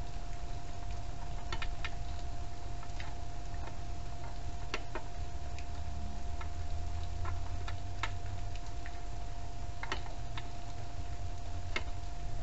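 Scattered light clicks and taps at uneven intervals, up to a few in a second, over a steady low rumble and a faint constant whine.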